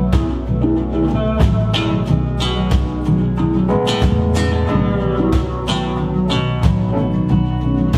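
Live folk band playing an instrumental break: strummed acoustic guitar, electric guitar, bass and drums keeping a steady beat, with a Weissenborn lap slide guitar and keyboard.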